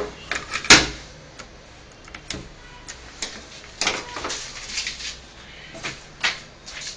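Scattered clicks and light clatter of small hard objects being handled on a tabletop: laptop screws and screwdriver parts. A sharp click comes about a second in.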